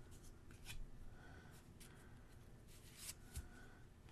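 Faint rustling and soft, scattered clicks of trading cards being handled and slid from one to the next.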